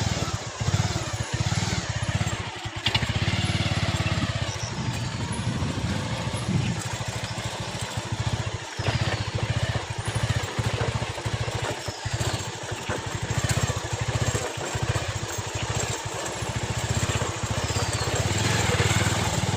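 Motorcycle engine running steadily while riding over a rough off-road track, with rough noise from the ride over it.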